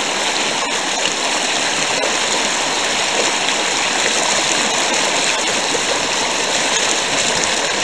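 Steady rush of river water running fast over shallow, rocky rapids below a low dam, with water spilling over the open part of the dam.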